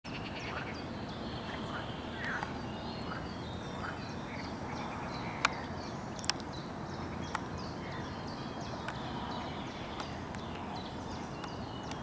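Many short, high bird chirps and peeps over a steady low background noise, with three sharp clicks around the middle.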